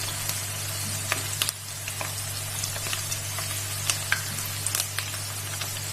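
Batter-coated cauliflower florets deep-frying in hot oil in a kadhai: a steady sizzle with scattered small crackles and pops.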